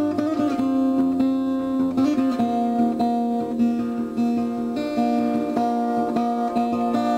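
Background music: a strummed acoustic guitar playing sustained chords with a steady rhythm.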